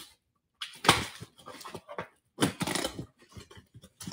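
Packing tape on a cardboard box being slit with a utility knife and torn open, in two noisy bursts, followed by the cardboard flaps being pulled back.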